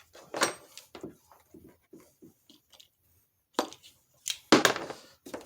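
Hands working plastic light-housing parts and wiring: a run of short clicks and rustles, with a louder scuffing cluster about four and a half seconds in.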